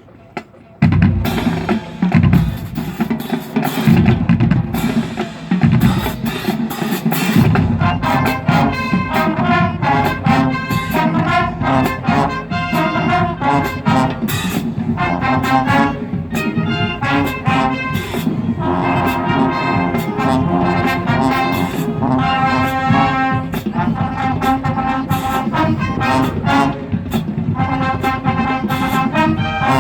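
Marching band playing, with brass and drums. It starts about a second in with a series of loud accented hits and breaks, then goes into full, sustained brass playing.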